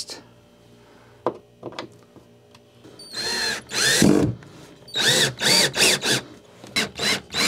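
Cordless drill driving a screw through a wooden board into a drywall wall anchor. After a few light clicks, the motor runs once for a second or so, then in several short spurts, its whine rising and falling in pitch with each run.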